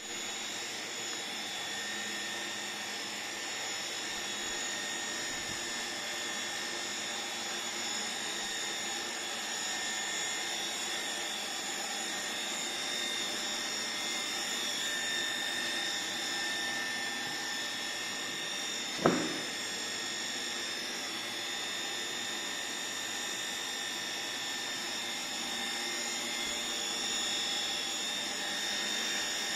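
A 20 HP bottom-entry homogenizer running with no vessel fitted: its electric motor and rotor-stator head spinning at a constant speed with a steady whine. A single sharp knock about two-thirds of the way through.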